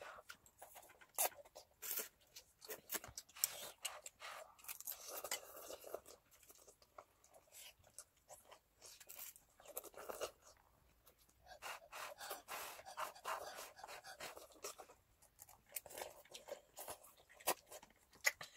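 People slurping and chewing instant cup noodles, with many light clicks of chopsticks and utensils against paper cups and bowls.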